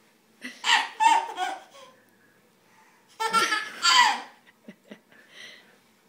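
A baby laughing in two bursts, about half a second in and again about three seconds in.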